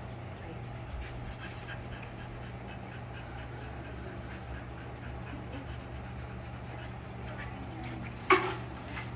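Kerry Blue Terrier whining and panting while held at the start line over a steady low hum. One short, loud sharp sound comes just after the dog is released near the end.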